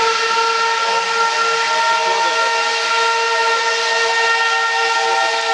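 Steam locomotive whistle blowing one long, unbroken note over a hiss of steam, with a second tone joining about two seconds in.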